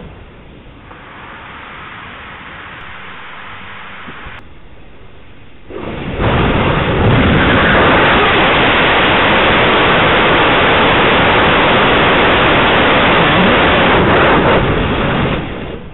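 Rocket engine with additively manufactured parts being hot-fired on a ground test stand. A quieter hiss for the first few seconds, then the engine lights about six seconds in and fires with a loud, steady rushing noise for about nine seconds before shutting down near the end.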